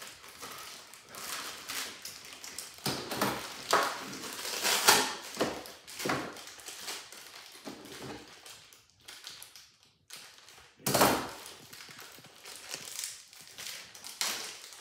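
Thin plastic packaging bag crinkling and rustling as it is cut open with scissors and handled, with scattered taps of plastic parts on the table. The loudest crackles come about five and eleven seconds in.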